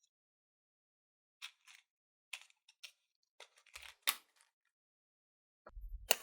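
A 'match stick' firecracker crackling as it burns: a scatter of about a dozen sharp, separate pops with silence between them. A low thump and a loud crack come near the end.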